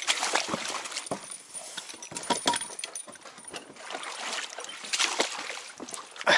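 Footsteps crunching over pebbles and gravel, an uneven run of scuffs and stony clicks.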